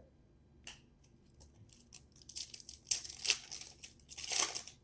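Wrapper of a baseball card pack crinkling and tearing as it is opened, in short rustling bursts that are loudest about three seconds in and again near the end.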